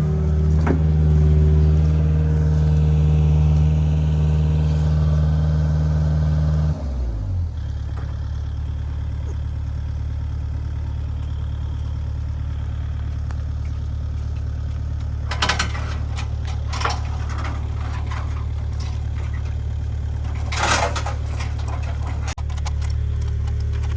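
An engine running at a higher speed, throttled down about seven seconds in to a steady idle. A few short clatters are heard over the idle in the second half.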